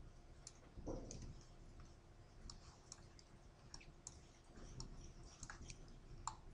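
Faint, irregular clicks of a computer mouse over quiet room tone.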